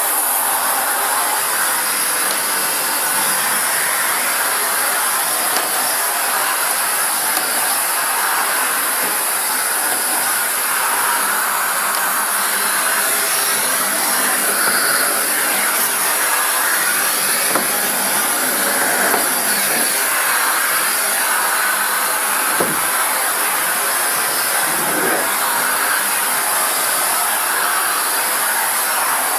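Vacuum cleaner running steadily, a continuous rushing air noise with a high-pitched whine.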